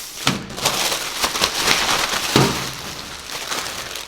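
Packaging rustling and crinkling as it is handled and unwrapped, a dense run of small crackles.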